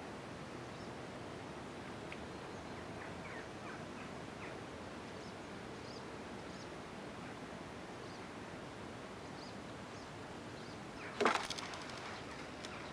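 Steady outdoor ambience, a soft even hiss with faint short bird chirps now and then. About eleven seconds in comes a brief loud rustling flurry, the loudest sound here.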